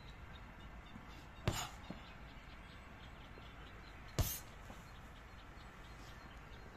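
Two kicks landing on a handheld Muay Thai kick shield, each a sharp thud, about a second and a half in and again past four seconds.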